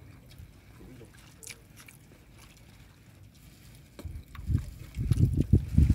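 Faint ambience aboard a small wooden boat with a few light clicks. From about four seconds in, irregular loud low thumps and rumbling set in.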